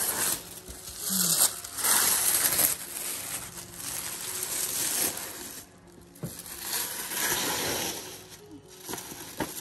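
Tissue paper rustling and crinkling as a wrapped gift is pulled open by hand, in several noisy bursts.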